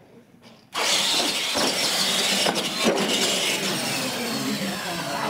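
Two radio-controlled monster trucks launching off the start line about three-quarters of a second in and racing flat out. Their electric motors whine and their tires rush over a hard hall floor, loud and steady until the end.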